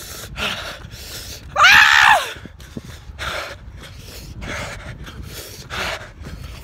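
A runner's heavy, ragged breathing while jogging, with a loud pained wail that rises and falls about two seconds in. The breathing and crying come from the burning pain of spicy chicken eaten mid-run.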